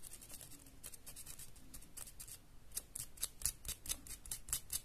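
Small piece of sandpaper rubbed in short scratchy strokes over the scorched contact of a thermomagnetic circuit breaker, sanding off the burnt, darkened layer so current can pass again. The strokes are faint at first and grow quicker and louder in the second half, about five a second.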